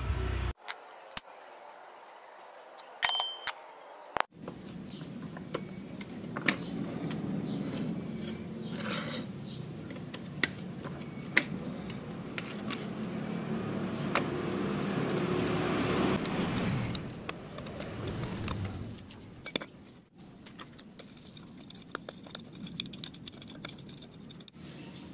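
Metal hand tools and scooter CVT clutch parts clinking and scraping as they are handled on a concrete floor, with scattered sharp metallic clicks over a steady background and a broad swell of noise around the middle.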